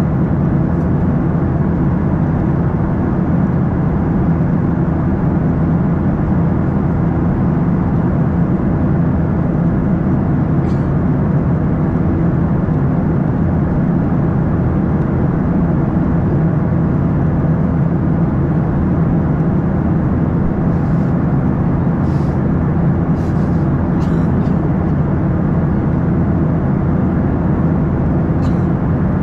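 Steady cabin noise of a Boeing 737-800 in flight: the drone of its CFM56-7B jet engines blended with the rush of air past the fuselage. A few faint clicks come in the last third.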